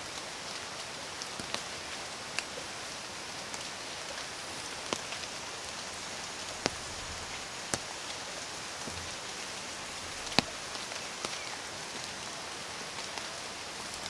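Steady rain falling on rainforest foliage: an even hiss with scattered sharp taps of drops, one louder tap about ten seconds in.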